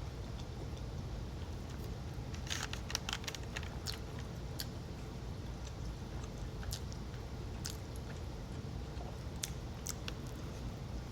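A person chewing sushi close to the microphone: wet mouth clicks, bunched together about two and a half to four seconds in, then spaced out singly, over a steady low hum.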